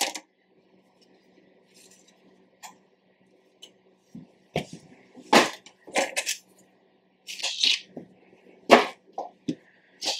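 Kitchen handling noises while overripe bananas are peeled over a plastic mixing bowl: a dozen or so short clicks, light knocks and brief rustles. The loudest come about five and a half and nine seconds in.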